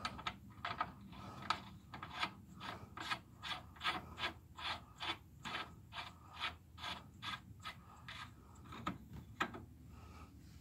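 A nut being run onto a car's lower control arm mounting bolt, left loose for now: a steady series of short metallic scraping clicks, about three a second, with the last two coming after a short pause a second or so before the end.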